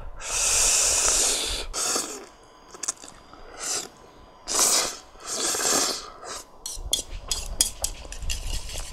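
A man slurping stir-fried noodles in several loud, hissing slurps, then chewing, with a run of small clicks and taps of chopsticks in the bowl near the end.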